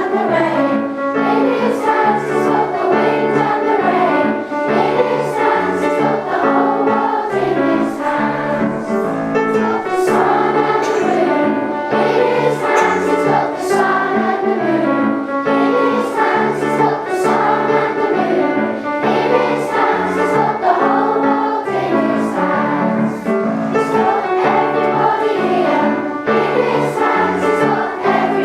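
A group of children singing a song together over instrumental accompaniment, with a moving bass line and a steady beat.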